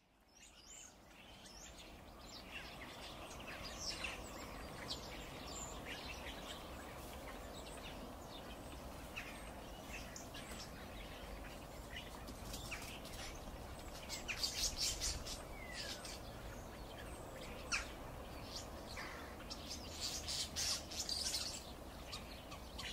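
Birds chirping and singing over steady background noise, fading in at the start, with livelier bursts of chirps about two-thirds of the way through and again near the end.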